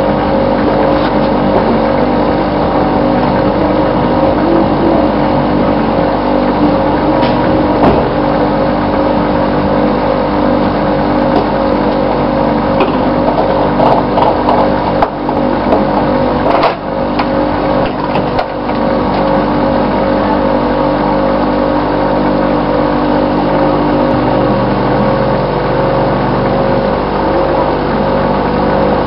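Fuel dispenser pumping fuel: a steady mechanical hum with several constant tones, with a few knocks and clicks around the middle.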